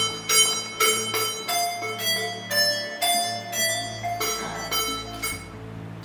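Music: a melody of short notes, each struck sharply and dying away, about two a second.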